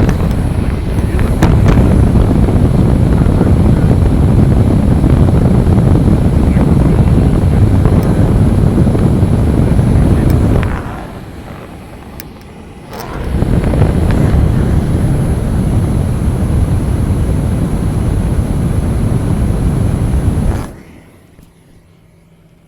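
A blower sends a steady, loud rush of air at the driver's-side windshield edge of a 2026 Honda Passport. It eases off about ten seconds in, comes back a few seconds later, and cuts off near the end. The test recreates a wind noise that the owner puts down to air getting past a windshield seal that is not sealed.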